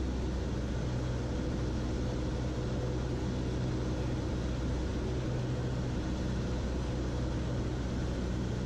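Cessna 152's four-cylinder Lycoming piston engine and propeller running steadily on final approach, heard from inside the cabin as an even drone.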